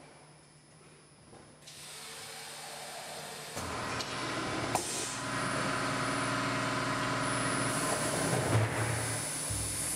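Automatic drum-filling machine running: a hiss of compressed air sets in about two seconds in, then a steady motor whine and hum takes over, with a sharp click about a second after it starts.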